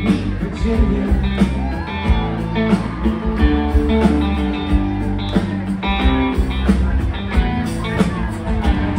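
Live rock band playing with guitar over a steady beat; a singer sings the word "Virginia" near the start, then the band carries on without vocals.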